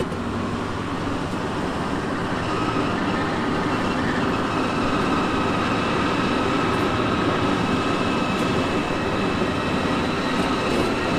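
Heavy diesel construction machinery running steadily under load: a dense engine rumble, with a faint steady whine above it from about two seconds in.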